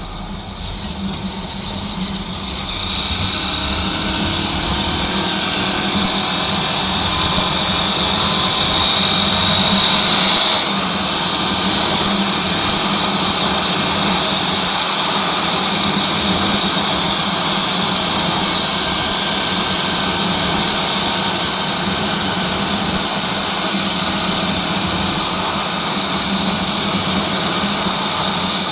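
Honda XR 250 Tornado motorcycle's single-cylinder engine running at road speed, with wind rushing over the microphone. It grows louder over the first few seconds and then holds steady.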